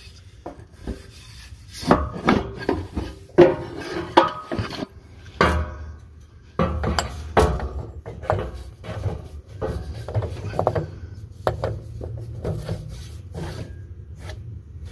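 Driveshaft and U-joint being worked loose and handled under a car: irregular clunks, knocks and scraping of metal parts.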